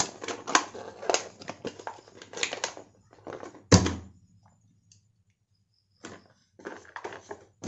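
A motorcycle disc-brake lock and its packaging being handled: a run of quick clicks and rattles, one sharp knock about three and a half seconds in, then a few more clicks near the end.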